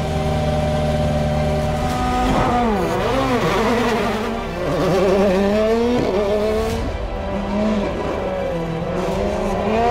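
Rally car engines, 1.6-litre turbocharged four-cylinders of World Rally Cars, revving hard, their pitch swooping up and down through gear changes from about two seconds in, over background music.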